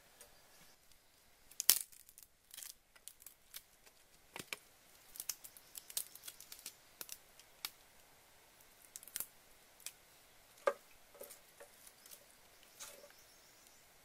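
Scattered sharp clicks and taps of hands at work with a knife and a metal basin, irregular and unevenly loud, the loudest one near two seconds in.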